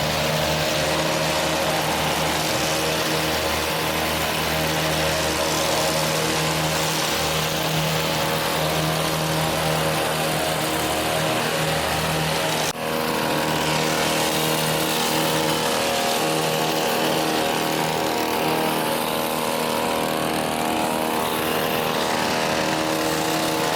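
Motor vehicle engine and road noise, driving at a steady speed with no change in pitch, briefly interrupted about 13 seconds in.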